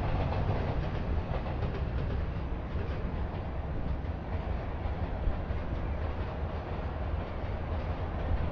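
Steady low rumble of passing vehicles, with no single event standing out.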